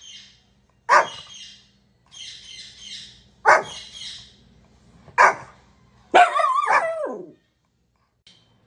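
A dog barking: three sharp single barks a couple of seconds apart, with quieter yapping between them, then a longer bark with a wavering pitch near the end.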